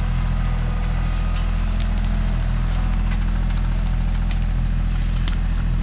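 Bobcat compact tractor's diesel engine idling steadily, with scattered light clicks and knocks over it.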